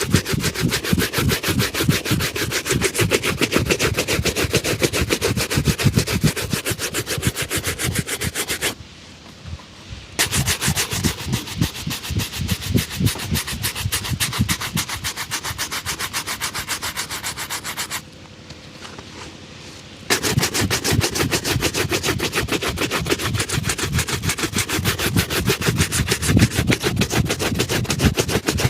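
A leather shoe being buffed in rapid back-and-forth rubbing strokes during a shoe shine. The strokes stop twice for a second or two, then resume.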